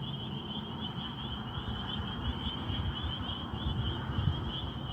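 Crickets chirping in a steady night chorus: one continuous, finely pulsing high trill, over a low rumbling background noise.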